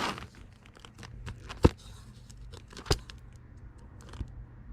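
Packing materials being handled: light crinkling and small clicks, with two sharp knocks, one a little under two seconds in and another about a second later.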